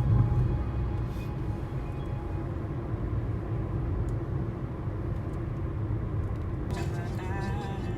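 Steady low rumble of a vehicle on the move, like road and engine noise. Near the end a brief higher, wavering sound joins it.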